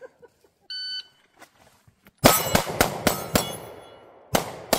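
Electronic shot-timer start beep, then about a second and a half later a pistol fires a fast string of about seven shots. Two more shots follow after a pause of about a second, the last one about four seconds after the beep: the end of a 4.03-second timed run.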